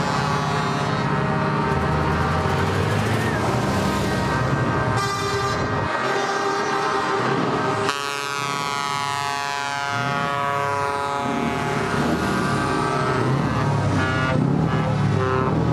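Truck air horns sounding in long, sustained blasts over the running of heavy truck engines as the trucks drive past; about halfway through, the horn tones slide down in pitch.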